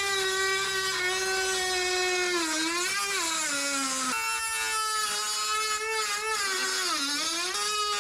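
A small high-speed power tool whining as it cuts into a plastic car bumper. Its pitch drops as it bogs under load, about halfway through and again near the end, then picks back up.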